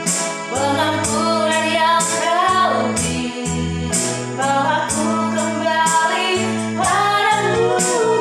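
Christian worship song: a woman singing a slow melody over held keyboard chords, a bass line and regularly struck cymbals.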